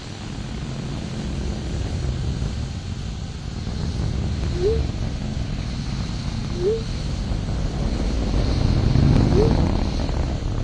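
Deep rumble of the Atlas V rocket's RD-180 engine during launch, growing louder toward the end. Four short rising blips are heard over it.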